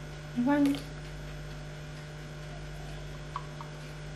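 Steady low electrical mains hum, with one short voice-like sound about half a second in and two faint ticks near the end.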